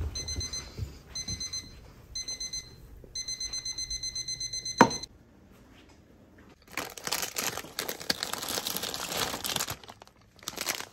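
High-pitched electronic alarm-clock beeping, in quick groups of four that run into a rapid unbroken string and cut off with a sharp click about five seconds in. After a short lull, the crinkling and rustling of plastic snack bags being rummaged through.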